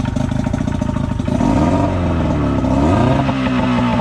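Military outboard motor running, a formerly seized engine now running again. About a second and a half in, the engine speed swings down and up as the throttle is worked, then rises and holds at a faster run.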